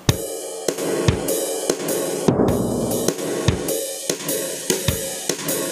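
Instrumental intro of a worship song starting abruptly: a drum kit with cymbals and hi-hat keeps a steady beat over sustained chords.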